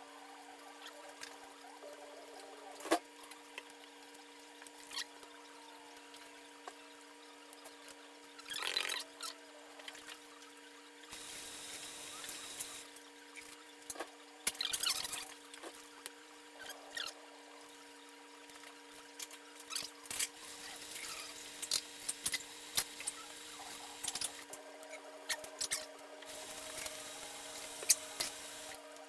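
Tie-dye squirting from plastic squeeze bottles onto damp folded cotton towels, in short hissing spurts, with scattered clicks and taps of bottles against the plastic tubs. A steady hum runs underneath.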